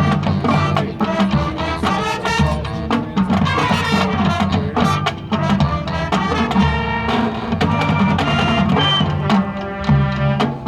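High school marching band playing: brass chords over drumline percussion.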